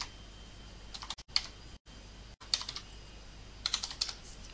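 Computer keyboard being typed on in short, irregular runs of a few keystrokes at a time, entering text into a form.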